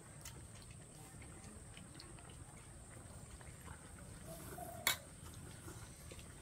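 Quiet mealtime clatter: chopsticks, spoons and a ladle clicking against ceramic bowls and a metal hotpot as broth is ladled into a bowl. One sharp clink about five seconds in.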